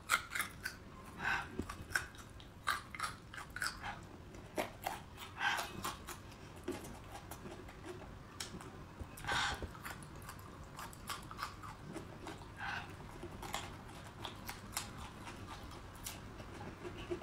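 Close-up crunching and chewing of raw garlic cloves, in irregular bites, with a louder crunch about nine seconds in.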